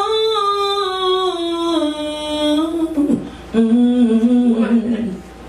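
A woman singing wordless notes unaccompanied into a microphone: one long note that slides slowly downward, then after a short break a lower held note.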